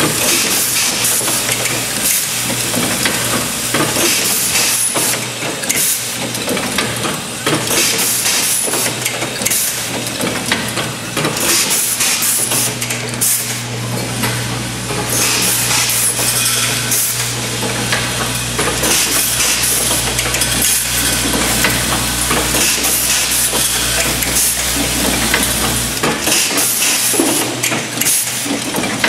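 Automated dial-table assembly machine running: pneumatic cylinders hiss with air and many quick clicks and clacks come from the indexing table and pick-and-place tooling, over a steady low hum. A deeper rumble joins in from about twelve seconds in and drops away about four seconds before the end.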